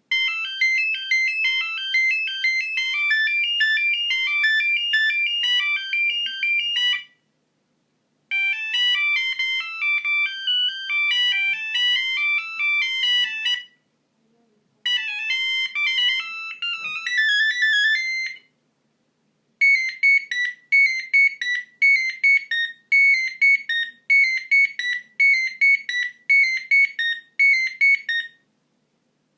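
Philips Savvy mobile phone playing its built-in monophonic ringtones one after another: four short beeping melodies, each stopping after a few seconds before the next begins. The last is a quick figure of notes repeated over and over.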